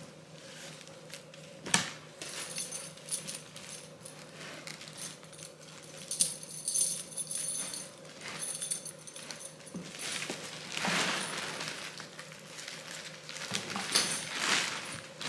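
A leather stud girth being handled while a sheepskin cover is fitted onto it: its metal buckles jingle and clink against each other, with a sharp knock about two seconds in and stretches of rustling from the fleece and material being worked.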